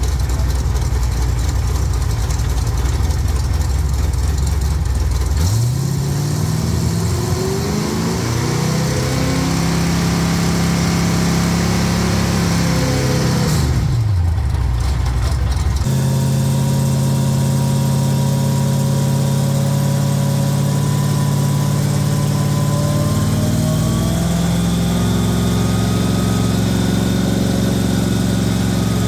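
Stock car V8 engine on a rolling road: it revs up from idle and holds high for several seconds, drops back down, then runs at a steady higher note whose pitch climbs slowly near the end.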